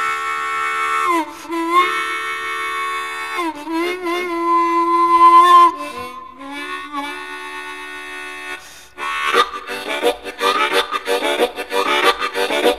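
Blues harmonica opening a rock song: long held chords that bend and wail, then, about nine seconds in, a fast chugging rhythm in the manner of a train.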